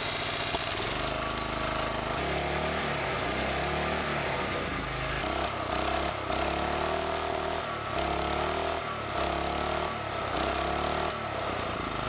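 Small single-cylinder engine with a see-through cylinder head running on charcoal lighter fluid in place of gasoline, its pitch swelling and sagging every second or two.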